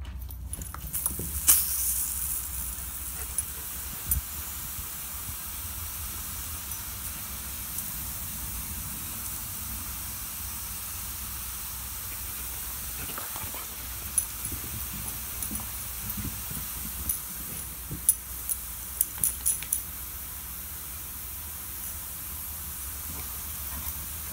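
Garden sprinklers spraying water with a steady hiss that starts about a second in. A few sharp clicks and taps come in the second half.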